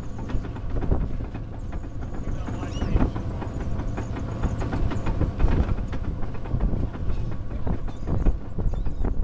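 A trawling boat's engine running steadily, under the rush of wind and wake water. Gulls call briefly now and then.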